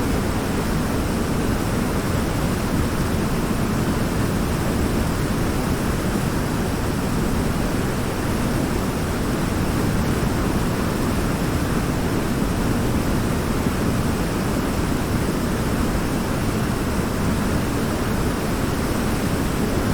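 A waterfall: a steady, unbroken rush of falling water, heaviest in the low range.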